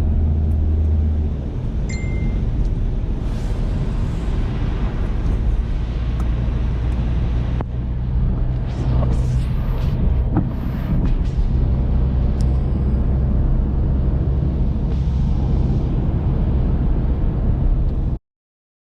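Steady low rumble of vehicle engines and street noise, which cuts off abruptly near the end.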